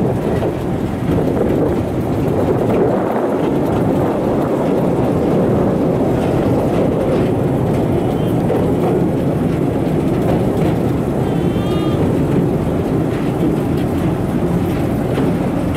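Open-air rail cart running along the track: the steady rumble of its wheels on the rails and its running gear, holding level throughout.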